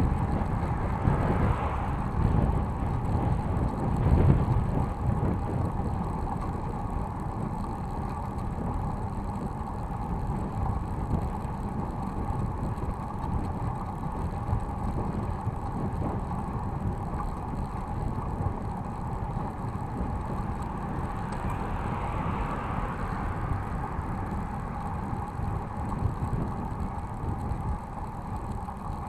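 City bike riding along a paved cycle path, heard from a handlebar-mounted camera: a steady rumble of tyres and wind with the bike's mechanical rattle, louder in the first few seconds.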